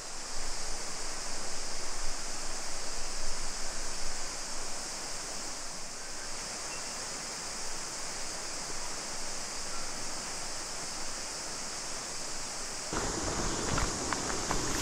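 A river runs steadily, with a continuous high-pitched drone of cicadas above it. Near the end, footsteps crunch on river stones.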